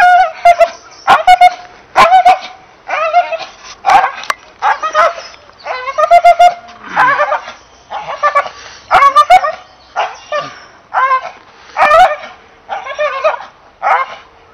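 English Bull Terrier giving repeated high-pitched, excited barks, about one a second, while leaping.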